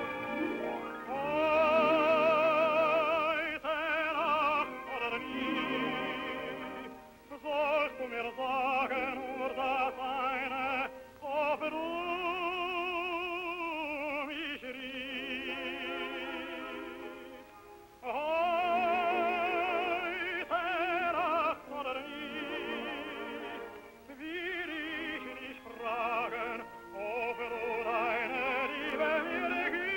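Operatic tenor voice singing a German song with a wide vibrato. The long, swelling held notes are separated by short pauses between phrases.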